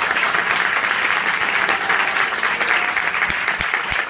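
Audience applauding, a crowd of many hands clapping steadily.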